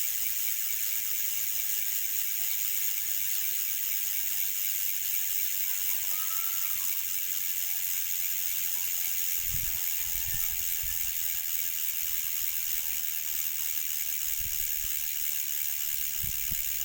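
Ragusa XM-500 bicycle rear hub freewheeling, its pawls ratcheting in a steady, fast high buzz as the wheel spins, still running well after a year of use. A few faint knocks come near the middle and near the end.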